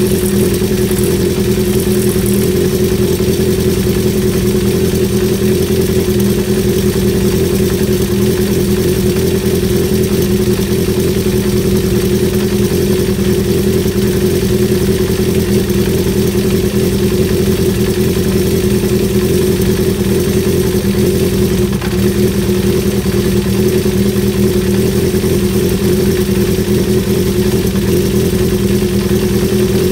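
Honda CB350 Four's air-cooled four-cylinder engine idling steadily, with its mechanical engine noise.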